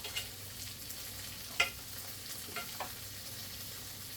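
Tofu pan-frying in oil with a steady sizzle, broken by a few sharp clicks of a utensil against the pan, the loudest just past halfway.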